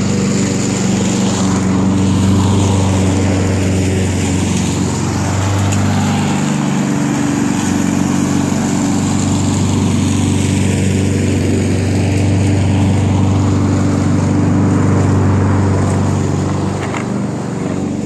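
Walk-behind lawn mower engine running steadily as it is pushed across the grass, its low hum dipping briefly about six seconds in and easing near the end.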